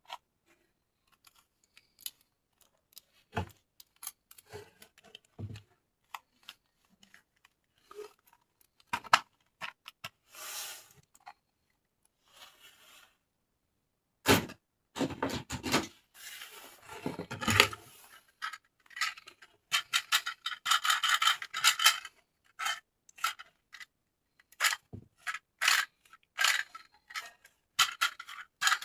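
Toy packaging being handled and opened: intermittent rubbing, scraping and tearing with scattered clicks, louder from about halfway through and a dense crackling run about twenty seconds in.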